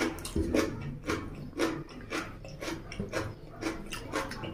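Close-up chewing of rice and mutton curry: wet, smacking mouth sounds, about two a second.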